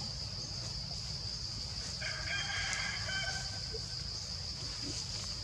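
A rooster crowing once, about two seconds in, for just over a second, over a steady high-pitched insect drone.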